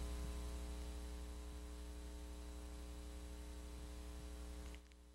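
Faint electrical mains hum with a stack of steady overtones over light tape hiss, fading slowly and then dropping away abruptly near the end.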